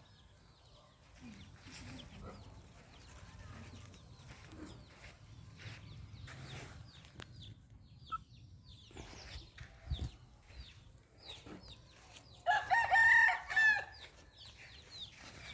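A rooster crows once, loud and drawn out, about twelve and a half seconds in. Short, softer fowl calls and chirps are heard throughout.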